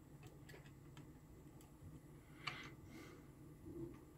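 Near silence with faint, irregular small clicks and taps of fingers handling a multimeter circuit board while fitting a part into it, and a soft rustle about two and a half seconds in.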